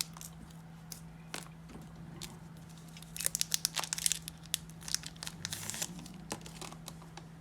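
A 2013 Select baseball card pack wrapper being torn open and crinkled, a run of papery rustles and crackles that is busiest about three seconds in, over a faint steady hum.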